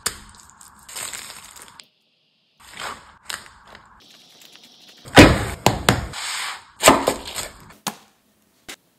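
Close-up food-prep sounds: soft wet spooning and rustling as a flour tortilla is filled and rolled, then a run of loud, sharp crunches and cracks from the pan-crisped burrito shell.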